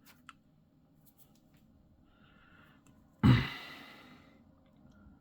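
A faint click, then a person's sharp exhale close to the microphone about three seconds in, trailing off over about a second.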